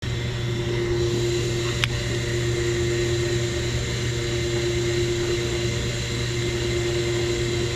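A steady mechanical hum with a constant whine over it, and a single sharp click about two seconds in.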